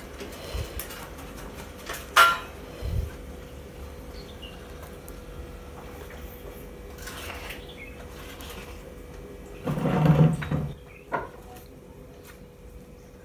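Pots, pans and metal utensils handled at a stove. There is a sharp clank about two seconds in, a dull knock just after it, and a longer, louder clatter of cookware about ten seconds in, over a faint steady hum.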